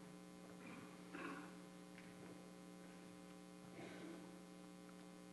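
Near silence: a steady electrical hum in the sound system, with a few faint soft noises about a second in and again near four seconds.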